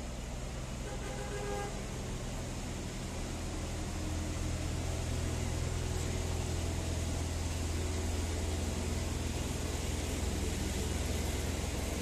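Steady low engine rumble and city street traffic noise, growing louder about four seconds in.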